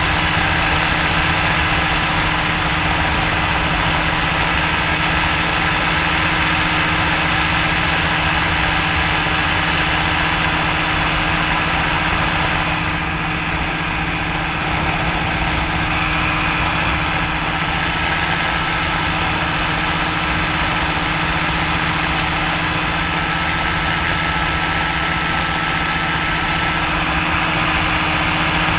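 Powered paraglider engine running at a steady speed in flight, with a slight dip in loudness about halfway through.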